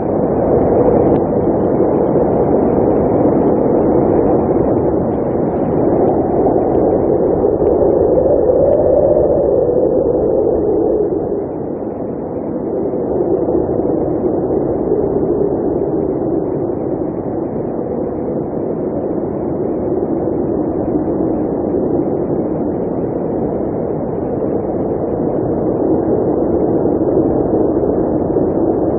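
Blizzard wind blowing as a steady rushing noise. It swells in pitch and strength about eight seconds in, then eases slightly a few seconds later.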